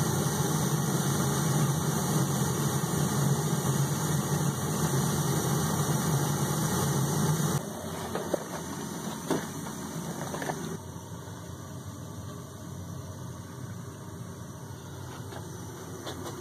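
A steady mechanical hum like a running motor or engine, which cuts off sharply about seven and a half seconds in. A quieter steady hum follows, with a few light clicks.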